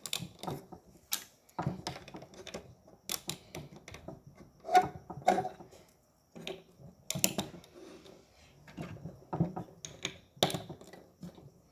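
Plastic Lego bricks clicking and clattering as they are handled and pressed onto a build: irregular sharp clicks and taps.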